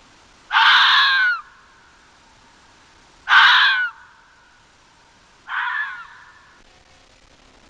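Harsh animal call repeated three times, each under a second long, the third one quieter.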